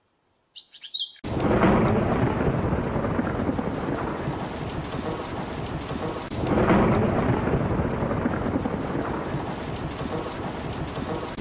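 Thunderstorm: steady heavy rain with thunder, two loud rumbles swelling about a second and a half in and again near the middle. A few short bird chirps come just before the storm starts abruptly.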